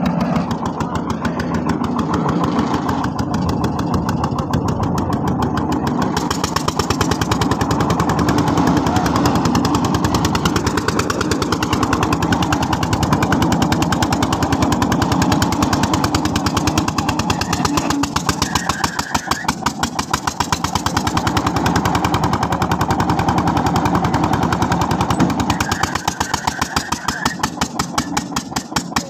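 Single-cylinder diesel engine running under load, driving a belt-driven well-boring rig, with a fast, even chugging of exhaust beats that eases briefly about two-thirds of the way through and again near the end.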